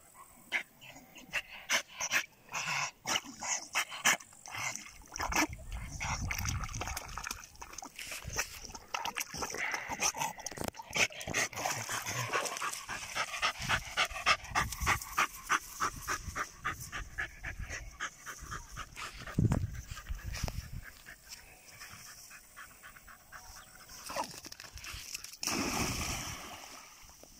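German Jagdterrier whimpering and yipping in quick, repeated bursts, then a splash about a second before the end as the dog plunges into the water.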